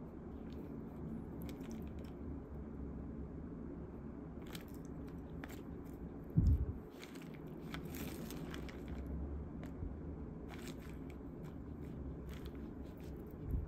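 Wooden chopsticks lifting and turning shredded cabbage, onion and seaweed in a clear plastic salad tray: scattered short rustles and clicks of the vegetables and the plastic. A dull low thump about six seconds in, and a smaller one near the end.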